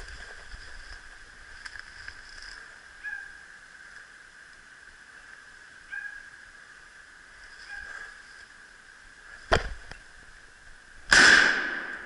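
A sharp crack, then about a second and a half later a much louder rifle shot that echoes and dies away over about a second.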